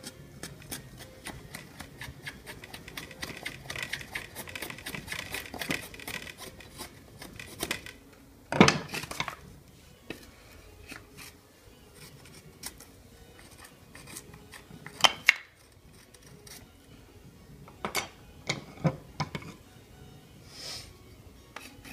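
Knife blade shaving thin curls down a wooden stick to make a feather stick: a quick run of short scraping strokes for the first several seconds, then a few separate, louder cuts.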